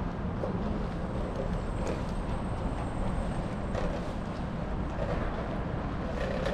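City street background: a steady low rumble of road traffic, with a few faint short higher sounds over it.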